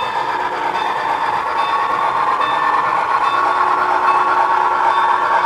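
Model passenger trains running on layout track: a steady rolling rumble of wheels and motors with a faint whine.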